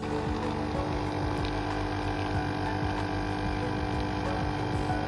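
Philips Senseo coffee pod machine brewing, its pump humming steadily as coffee streams into the mug.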